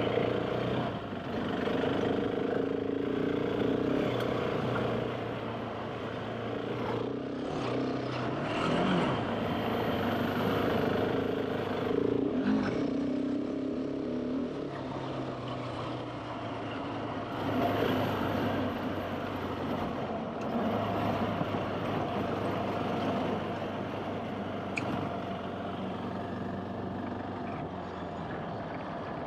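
Big trail motorcycle engine running under way off road, its note rising and falling with the throttle over a steady rush of noise.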